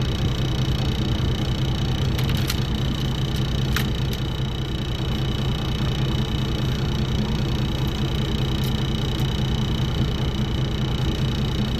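Boat engine idling steadily, with a few faint clicks.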